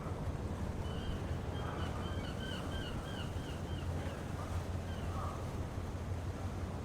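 Harbour ambience: a steady low hum of engines or machinery, with a gull calling in a quick series of about eight short notes from about one to three seconds in, and once more near the end.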